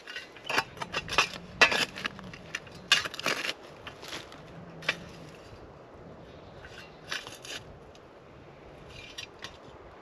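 Scraping and crunching as ash, charcoal and stones are cleared out of a stone fire ring with a shovel: a dense run of sharp scrapes over the first few seconds, then a few scattered ones.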